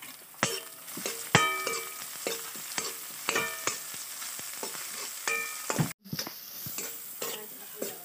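Onions and chillies sizzling in oil in a steel wok, while a metal spoon stirs and knocks against the pan in irregular clinks that ring briefly. The sound cuts out for an instant about six seconds in.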